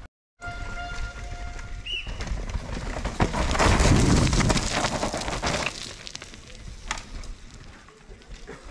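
A downhill mountain bike rushing past on the dirt track: tyre and rattling bike noise that swells to a peak about halfway through and fades again over a couple of seconds.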